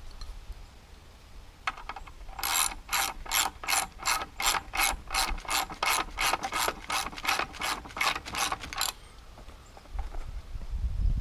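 Ratchet wrench clicking in a steady run of about three clicks a second as a bolt is turned. The clicking starts about two and a half seconds in and stops a couple of seconds before the end.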